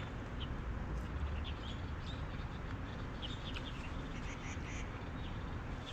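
Birds chirping: short, scattered high calls, several clustered around the middle, over a steady low outdoor rumble.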